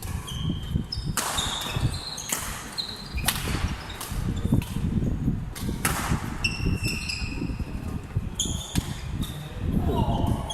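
A racket-sport rally on an indoor court: sharp racket hits about every two seconds, with short high squeaks from shoes on the court floor and an echoing hall murmur behind.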